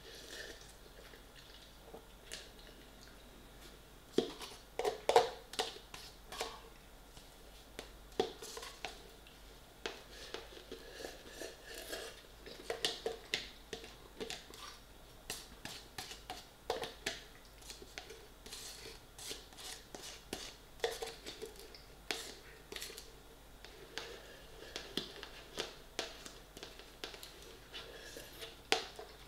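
Close-mouthed eating sounds: instant rice noodles slurped and chewed straight from a paper pot, with wet mouth smacks and light taps and rustles of the pot. They come in short, irregular bursts, busiest about four to six seconds in.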